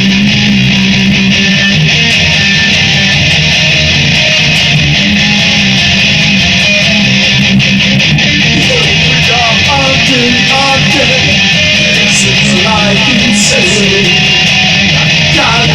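Guitar playing an instrumental passage with no singing, recorded on a phone; sustained chords throughout, with a picked melody line of single notes coming in about halfway through.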